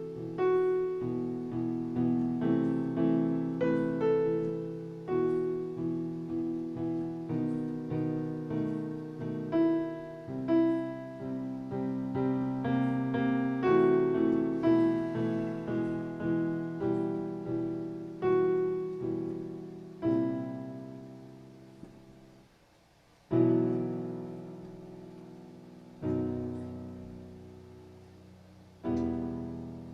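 Solo piano playing a slow, gentle piece. In the last third the notes thin out to three chords a few seconds apart, each left to ring and fade, as the piece closes.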